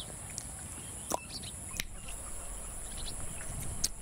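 Outdoor pond-side ambience: small birds chirping with short twittering calls over a steady high-pitched insect buzz, broken by a few sharp clicks.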